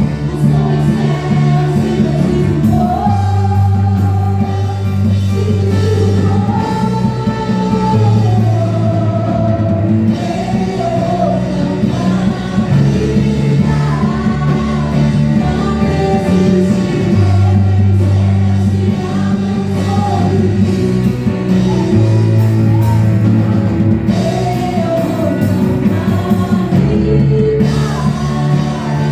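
Live worship band playing a song with singing: electric guitar, keyboard and bass guitar, with the bass holding long notes that change every couple of seconds.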